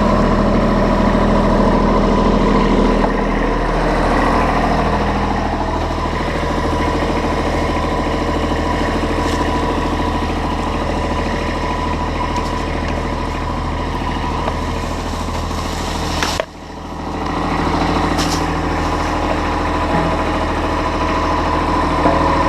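A heavy machine's engine running steadily, with a brief sharp drop in level about sixteen seconds in.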